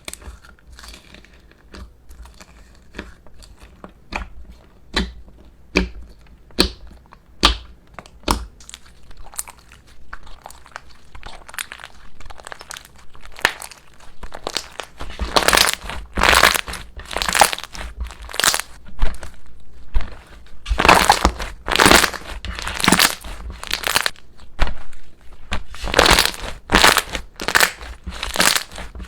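Slime being handled close to the microphone, crackling and crunching: scattered sharp clicks for the first half, then longer, louder crunchy squishes about once a second.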